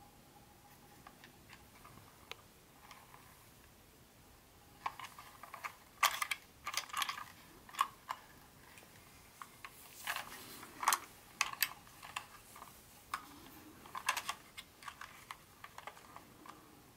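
Hands handling small hard parts of a model train set: scattered faint clicks at first, then irregular bursts of clicking and clattering from about five seconds in, loudest a few times, like plastic pieces being picked up, set down and fitted together.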